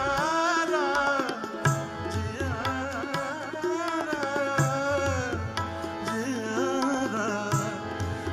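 Indian folk song performed live: a male singer holds a long wordless, ornamented vocal line, sliding between notes, over tabla strokes and steady held instrumental notes.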